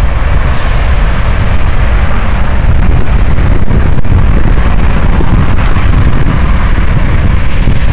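Steady, loud rumble of CSX diesel locomotives hauling a freight train across a railroad overpass, mixed with cars passing on the road below. The low end is heavy and sounds overloaded.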